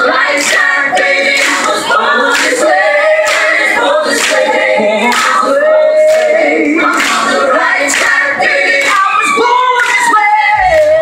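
A stage-show cast singing a number together over a steady beat of about two hits a second. A bass part comes in near the end.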